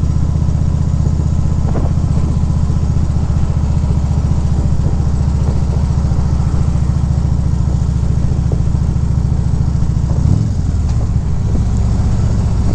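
2014 Harley-Davidson Ultra Limited's Twin Cam 103 V-twin engine running steadily at road speed, with wind and road noise. About ten seconds in, the engine note shifts lower.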